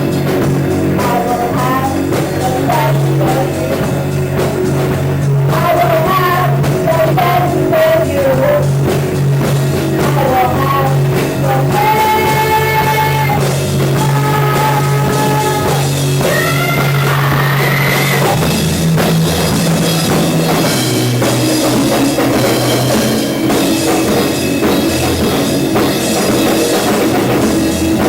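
A band playing loud rock music: drum kit, guitar and a singing voice, at a steady loud level.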